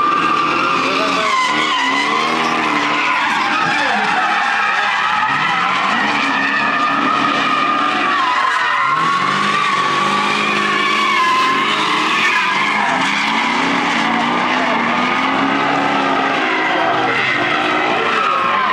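BMW E30 drift cars sliding sideways with continuous tyre squeal that wavers in pitch, and engines revving up and down underneath.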